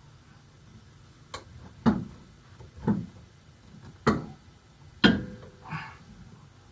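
About six sharp metallic knocks and clanks at uneven intervals, the loudest ringing briefly: hardware and tools being handled while a rear shock absorber is fitted to its mounts.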